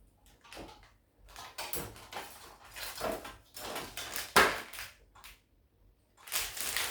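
Plastic model kit parts and packaging being handled and shuffled: irregular rustles and clicks with short pauses, and a sharp knock about four and a half seconds in.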